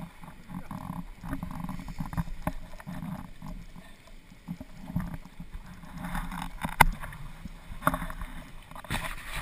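Snowboard sliding slowly over packed snow: an uneven low rumbling scrape, with a few sharp clicks and knocks toward the end.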